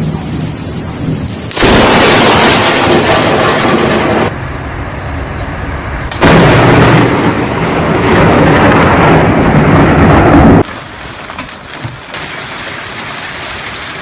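Thunderstorm sounds across cut-together clips: two loud stretches of storm noise, each a few seconds long, that start and stop abruptly, then steadier, quieter rain near the end.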